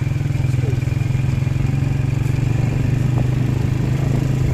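An engine running steadily at low revs, with a fast, even throb.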